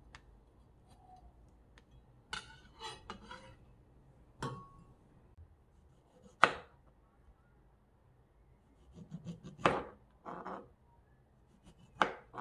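Kitchen knife cutting a plum and knocking down onto a plastic cutting board: a handful of sharp, irregularly spaced knocks and small taps, the loudest about six seconds in.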